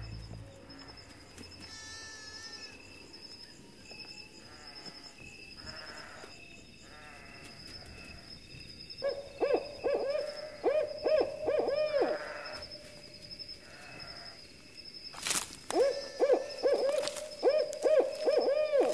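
An owl hooting in two quick runs of arched calls, several a second, over a steady high-pitched trill. A sharp click comes just before the second run.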